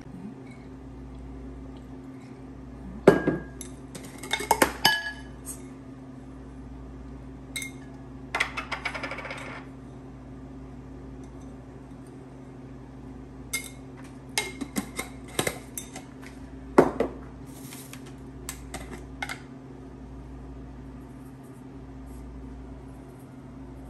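Kitchenware clinking: utensils knocking against ceramic bowls and steel pots in scattered clinks and clatters, the loudest about three seconds in and again about seventeen seconds in, with a short rattle around nine seconds. A steady low hum runs underneath.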